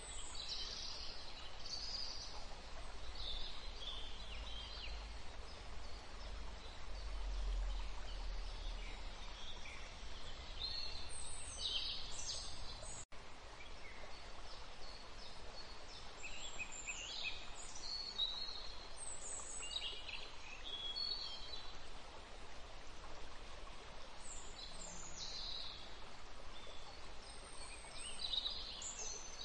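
Small birds chirping in short high calls on and off throughout, over steady background noise. The sound cuts out for an instant about 13 seconds in.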